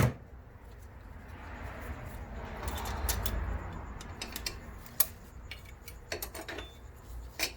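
Scattered light metallic clicks and clinks as friction clutch plates and steel plates are laid into a 4L60E transmission drum, with a soft shuffling noise in the middle.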